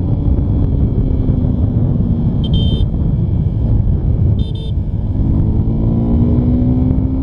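Suzuki Gixxer SF250's single-cylinder four-stroke engine pulling hard through the gears in a 0–100 km/h run, over heavy wind rumble on the rider's microphone. The engine note sags slightly, then climbs steadily from about five seconds in. Two short horn beeps come about two and a half and four and a half seconds in.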